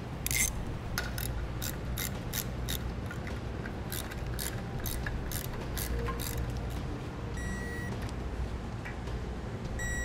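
Ratchet wrench clicking in a run of short strokes, about three a second, tightening hardware on a trailer disc brake caliper. Near the end there are two short electronic beeps, the second a little longer.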